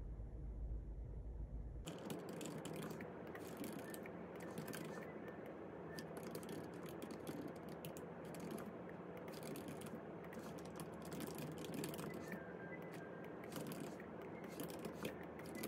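A low rumble, then about two seconds in a sudden change to many quick, irregular clicks and taps over a steady background noise.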